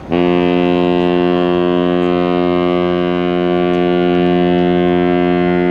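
A ship's horn sounds one long, loud, steady blast that starts suddenly.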